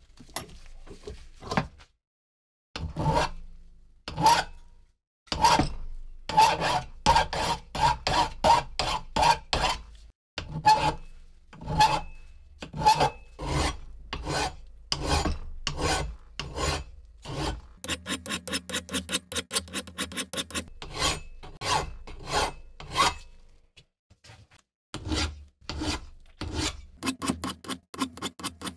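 Hand files rasping back and forth over the metal socket of a Civil War-era socket bayonet held in a bench vise, about two strokes a second with brief pauses. For a few seconds past the middle the strokes turn short and rapid.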